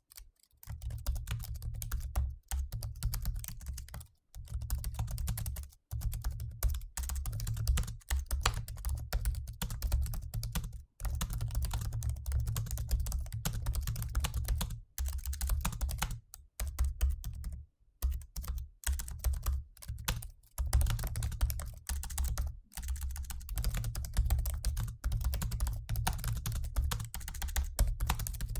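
Typing at a normal pace on a mid-2015 MacBook Pro's built-in scissor-switch laptop keyboard: a steady stream of key clicks, broken by brief pauses every few seconds.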